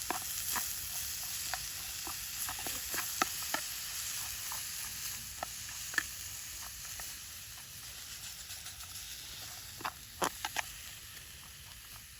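Food sizzling as it fries in a pan, a steady hiss with scattered crackling pops, fading gradually.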